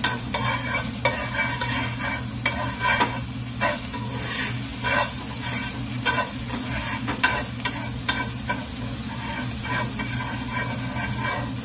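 Green chilies and ginger garlic paste sizzling in butter in a nonstick frying pan, stirred with a slotted metal turner that scrapes and taps the pan about once or twice a second.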